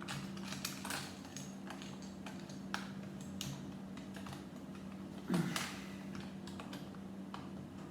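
Lego plastic bricks and parts clicking and clattering as they are handled and fitted together, with a louder knock about five seconds in, over a steady low hum.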